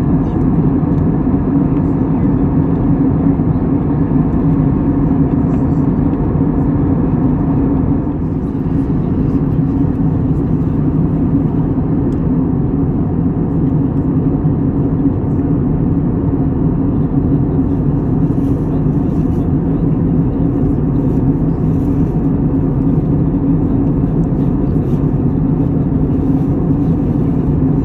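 A steady, low engine drone with a constant hum, unbroken and unchanging apart from a slight dip about eight seconds in.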